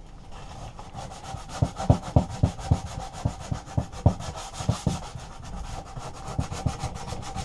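Sandpaper rubbed by hand in quick back-and-forth strokes over the painted metal engine housing of a Briggs & Stratton mower, about three strokes a second, starting about a second in. The old paint is being scuffed rough to give the primer something to grip.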